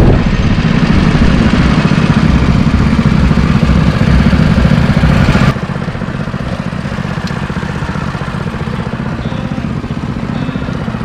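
Small go-kart engines running loudly. About halfway through the sound drops suddenly and carries on more quietly.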